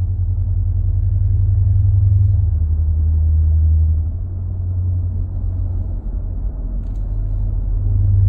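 Low droning hum inside the cab of a 2019 Ram 1500 Big Horn pickup, a random drone whose cause is not known. Its pitch drops a little about two and a half seconds in, it weakens after about four seconds, and it comes back strong near the end.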